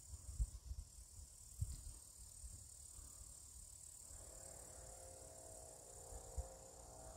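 Faint steady high chirring of insects in the grass, with a few low thumps. About four seconds in, a faint droning hum of several steady tones sets in.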